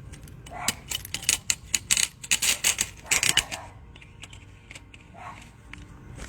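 Metal parts of an AR-15 rifle clicking and clattering as it is put back together by hand, the buffer spring and tube going back into the lower receiver. A quick run of sharp clicks over the first three seconds or so, then quieter handling.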